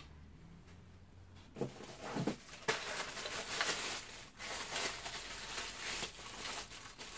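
Plastic packaging crinkling and rustling as vacuum cleaner parts are unwrapped. It begins with a couple of brief rustles and becomes a continuous uneven crackle from about a third of the way in.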